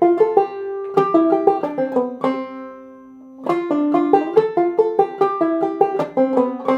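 Clawhammer banjo in open C tuning playing the Galax-lick pattern: a quick run of plucked notes, a lull of about a second in the middle as the strings ring out, then the run again.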